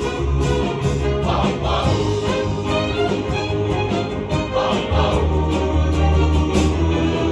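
Men's chorus singing a 1960s pop song in harmony over instrumental accompaniment with a steady bass line.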